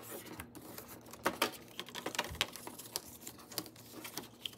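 Cardstock being folded and creased with a bone folder on a scoring board: irregular light taps, rustles and short scrapes of paper under the tool and hands.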